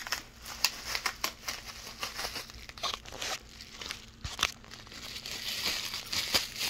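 Plastic bubble wrap crinkling and rustling as it is pulled off a small toy engine by hand, with irregular sharp crackles.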